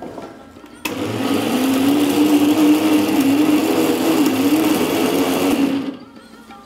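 Electric mixer grinder running with its stainless-steel jar, grinding moong dal, grated coconut and water into a paste. It switches on just under a second in, runs steadily with a slightly wavering pitch, and switches off about five seconds later.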